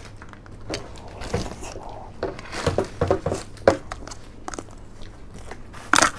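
Close-miked eating of a cream-filled crepe roll that is still partly frozen: soft chewing and biting, with scattered small clicks of a spoon against a plastic tub, the sharpest click a little after halfway.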